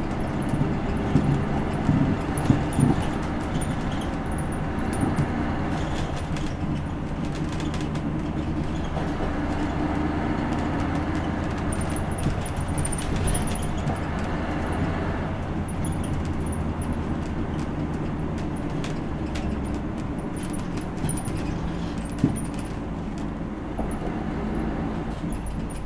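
Diesel engine and road noise of a 2001 city bus, heard from inside the passenger cabin. It runs steadily, with the engine note shifting a couple of times and a few light rattles in the first seconds.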